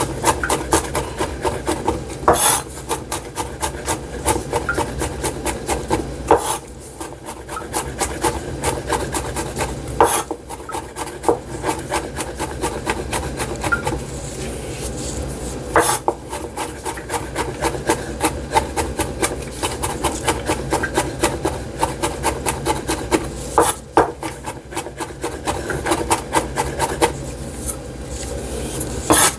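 Knife rapidly chopping on a cutting board, finely dicing garlic: a fast, steady run of taps with a few louder strikes and short pauses.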